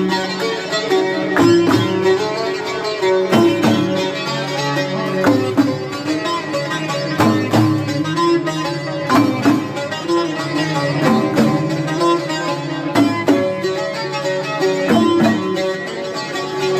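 Instrumental music played on a plucked string instrument, with sharp plucked notes every second or two over sustained tones.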